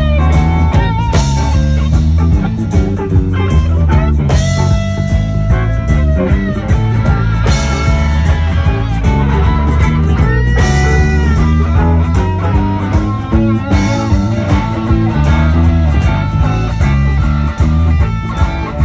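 Live band playing amplified rock: electric guitar with long held notes that bend in pitch, over bass and a steady drum beat.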